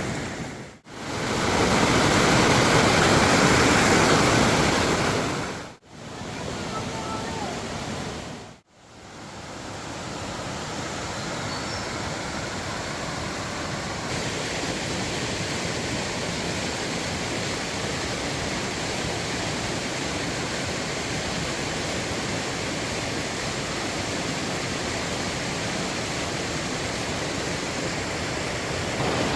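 Rushing floodwater: a steady, even roar of water with no rhythm to it. The sound drops out briefly three times in the first nine seconds and is loudest just after the first dropout.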